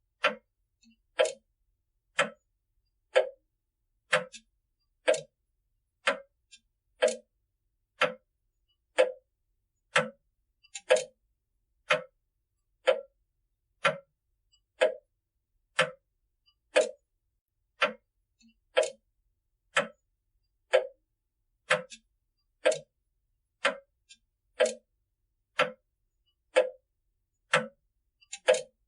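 Grandfather clock's pendulum escapement ticking steadily, one sharp tick about every second.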